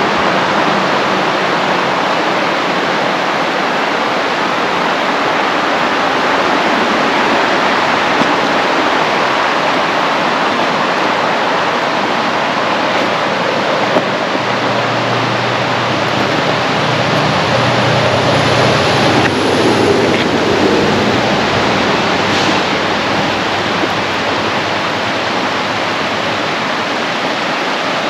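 Steady rushing road and wind noise of a vehicle driving, with a faint low engine hum partway through.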